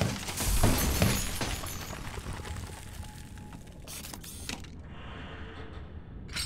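Sound-designed crunching and shattering of rock and crystal as a robot's metal scoop digs in, loudest in the first second and a half. Then quieter mechanical clatter and rubble, with a couple of sharp cracks about four seconds in and another near the end.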